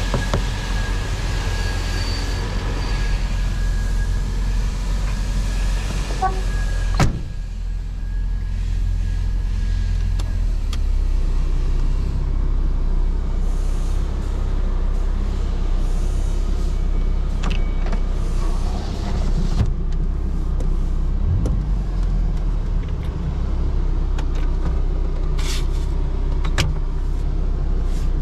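1983 Toyota Corolla KE70's 1.3-litre carburetted four-cylinder engine running steadily while driving, with road noise and one sharp knock about seven seconds in.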